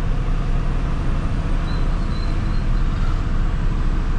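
Heavy truck's engine running on the road, a steady low rumble.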